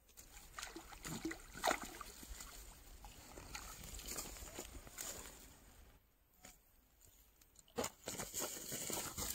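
A hooked catfish hauled from the water thrashing in the grass of the bank: irregular rustling with sharp slaps and knocks. It dies down about six seconds in, and a sharp knock and more rustling follow near the end.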